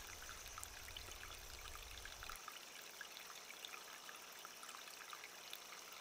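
Faint trickling water, with small scattered drips and ticks. A low hum underneath stops about two and a half seconds in.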